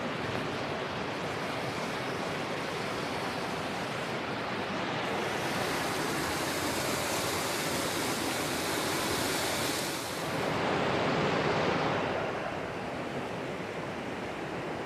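Fast, rough mountain stream water rushing steadily. A brighter hiss comes in from about five to ten seconds in, and the sound swells briefly just after.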